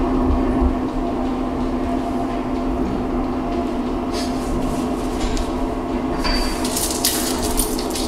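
A steady mechanical hum with several even tones, with a few light clicks and clinks near the end.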